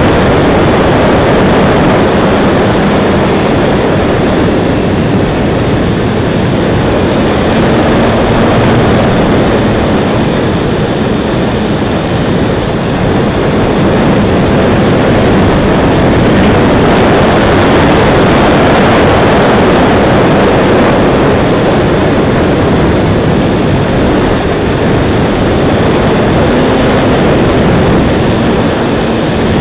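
Multiplex FunCub RC model plane in flight, heard from its onboard camera: a loud, steady rush of propeller and airflow noise over the microphone, with a faint electric motor hum underneath that shifts slightly in pitch a few times.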